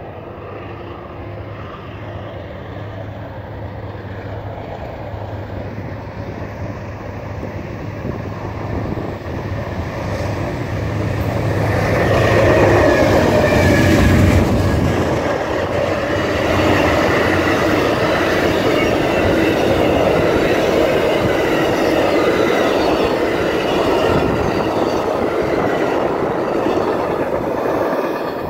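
Two Amtrak GE P42DC diesel locomotives approach and pass close by. Their engine drone grows steadily louder and is loudest about halfway through as they go by. Then comes the steady rumble and clatter of the passenger cars' wheels on the rails, which fades near the end as the train moves away.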